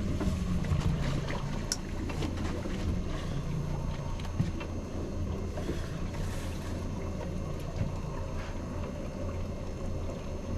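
Boat engine idling steadily, a low even hum, with a few faint knocks.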